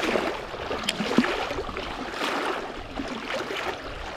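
Water lapping and splashing irregularly against a small fishing boat's hull, with a few sharp ticks.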